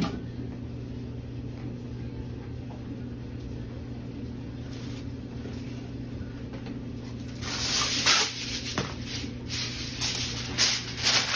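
Aluminium foil being pulled out and handled, crinkling in bursts from about seven seconds in, loudest about a second later and again near the end, over a steady low hum.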